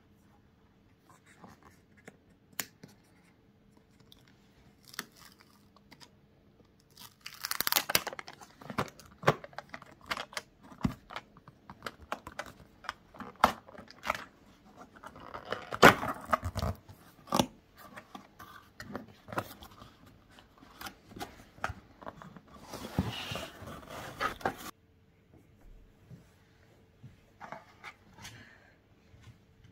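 Packaging being opened and handled by hand: tearing and crinkling in several bursts, with scattered clicks and knocks in between.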